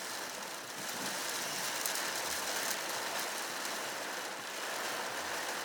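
Heavy rain falling steadily, an even hiss of rainfall during a storm.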